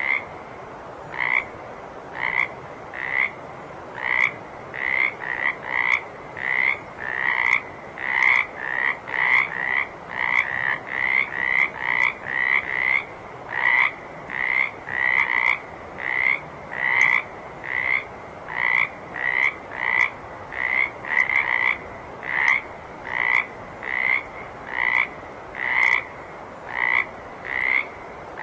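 A frog croaking over and over, short calls about one to two a second, some coming in quick doubles, over a steady background hiss.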